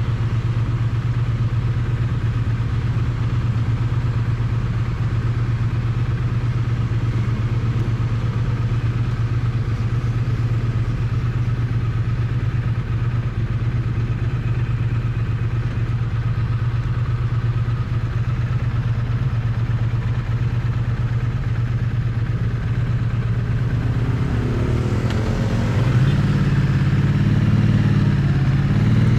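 Triumph Bonneville T100's parallel-twin engine heard close to its exhaust, running at one steady, low engine speed. About 25 seconds in, the engine note rises and gets a little louder as the bike is revved.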